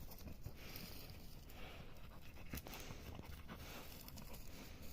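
Faint rustling with a few light clicks and scuffs, with no clear pattern.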